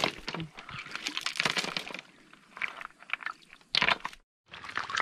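River stones clacking and knocking together with shallow water splashing, as rocks are turned over by hand in a rocky stream bed. A run of short, sharp clicks and crunches, broken by a brief dropout to silence a little after four seconds in.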